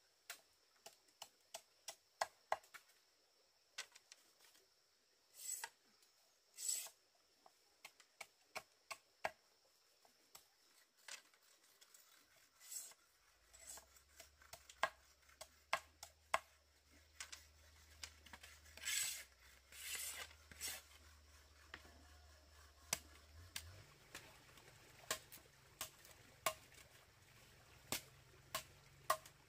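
Irregular sharp taps and knocks with a few short scrapes, from handwork with a tool or utensil. From about halfway a faint low steady hum joins in and shifts higher a few seconds before the end.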